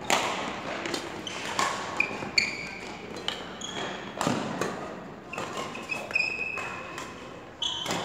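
Badminton rackets hitting shuttlecocks in irregular sharp strikes, with sneakers squeaking on the court floor now and then, echoing in a large sports hall.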